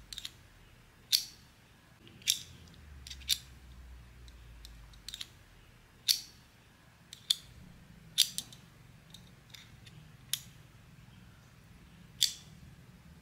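Blind-box packaging being handled and opened: about ten sharp clicks and snips, spaced irregularly about a second apart.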